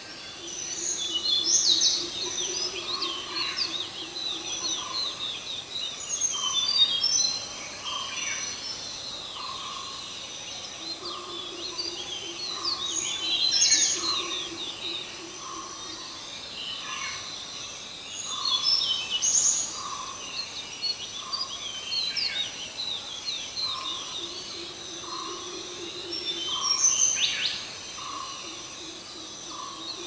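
Several small birds chirping and trilling in quick high notes, while another bird repeats a single lower note about once a second. A faint low hum comes and goes underneath.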